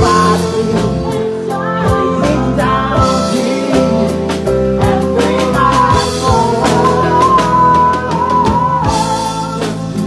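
Live reggae band playing: singing over guitar, cello and drum kit, with held, wavering high notes running over a steady drum beat.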